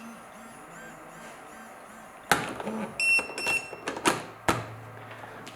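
Wireless restaurant pager beeping: a short run of high electronic beeps about three seconds in, with sharp clicks of handling around it and a low buzz near the end.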